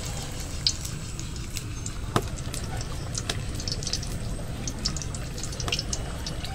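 Battered potato chops deep-frying in hot oil: a steady sizzle dotted with small crackles and pops, with a sharper pop about two seconds in.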